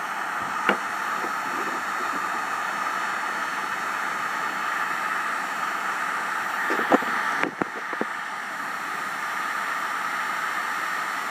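Handheld electric heat gun blowing steadily, melting thermoplastic pellets until they turn clear. A few light knocks come about seven seconds in.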